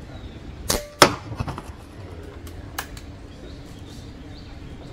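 Distant crack of a .177 pre-charged pneumatic air rifle firing, followed about a third of a second later by a louder, sharper smack as the 20-grain slug strikes a drink can, then the can clattering as it falls and one last knock a little under two seconds later.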